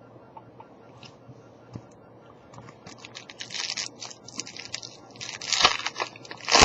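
Trading card pack wrapper being crinkled and torn open, a run of crackling from about a third of the way in, with the loudest rips near the end.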